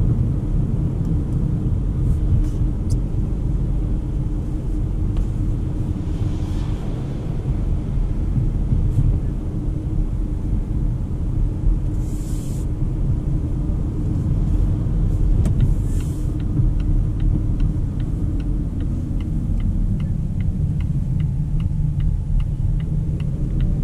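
Cabin sound of a Volvo XC40 B3 driving slowly on wet roads: a steady low rumble of the 2.0-litre four-cylinder petrol engine and tyres, with two brief hisses in the middle. In the second half the turn-signal indicator ticks steadily, about two to three clicks a second, as the car turns.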